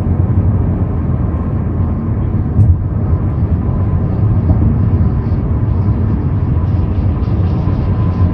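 Inside the cabin of a Hyundai Sonata Brilliant cruising at highway speed: a steady low rumble of engine, tyres and wind, with a faint thin whine running through it.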